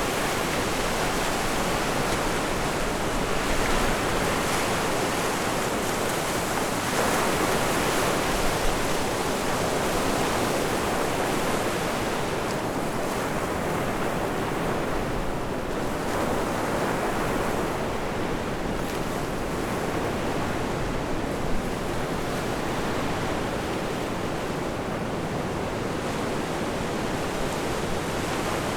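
Surf washing on a beach, mixed with strong wind rushing over the microphone; the noise swells and eases in slow surges.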